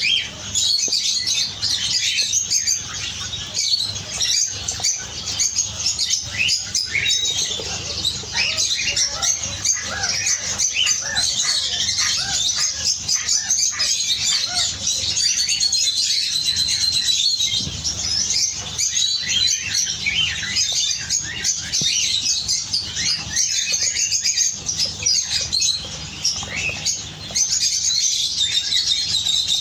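Many canaries chirping and singing at once: a dense, continuous chatter of high trills and tweets.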